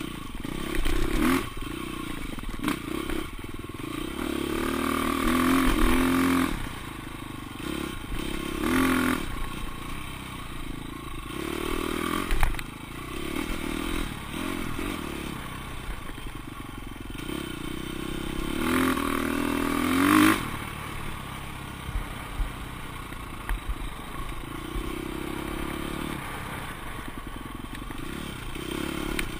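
Off-road dirt bike engine ridden hard along a rough trail, revving up and falling back again and again as the rider works the throttle, with the loudest revs about 6 and 20 seconds in. Occasional sharp knocks as the bike hits bumps.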